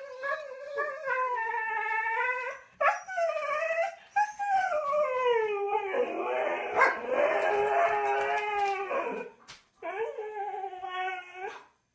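A dog howling in a run of about five long, drawn-out calls that slide up and down in pitch, with short breaks between them; the call in the middle is rougher and the loudest.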